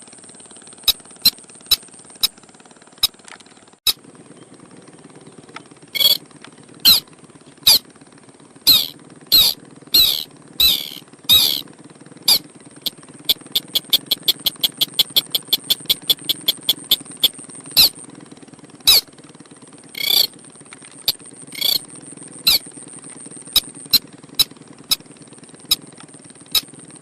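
Sintar crake calling, as played for bird luring: sharp, squeaky call notes at irregular intervals, breaking into a fast, even run of about five notes a second near the middle, over a steady high-pitched whine.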